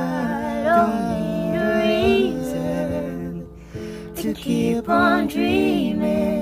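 Wordless singing or humming with wavering runs, over a held accompaniment.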